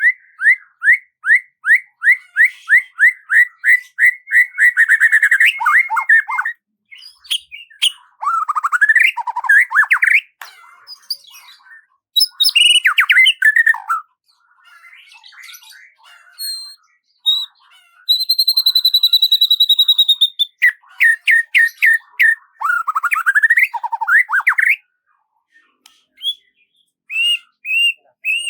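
Songbird singing in varied phrases: a run of quick rising notes that speeds up into a trill, warbled phrases that swoop down and up, and a long steady whistle about two-thirds of the way through, with short pauses between phrases.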